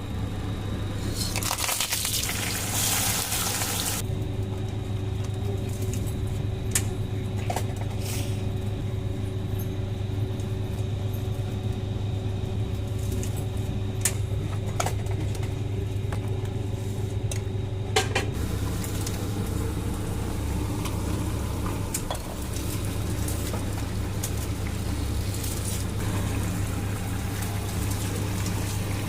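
Cooking in a pot: a steady low hum throughout, with liquid sloshing and a few sharp clinks of a utensil against the pot, and a burst of hissing about a second in that lasts a few seconds.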